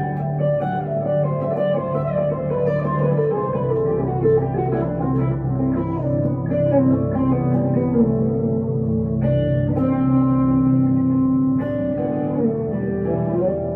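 1962 Gibson Les Paul Custom electric guitar played clean through a Two-Rock Emerald Pro tube amp, picking a slow melodic line over lower held notes. There is a descending run in the middle and a long sustained note near the end.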